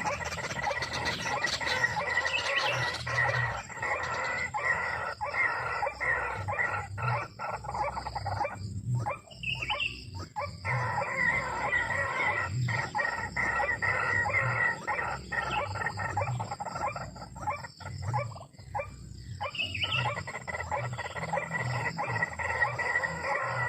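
Birds calling in a dense, continuous stream of rapid harsh notes, with short breaks about nine and eighteen seconds in.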